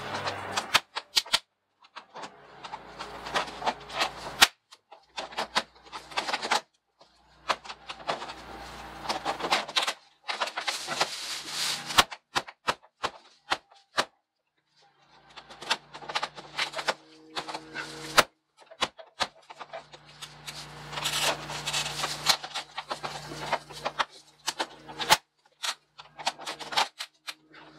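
Vinyl siding panels clicking, rattling and scraping as they are worked by hand, a screw hooked into the panel's lock to pull it down. Irregular clatter with many sharp clicks and a couple of short pauses.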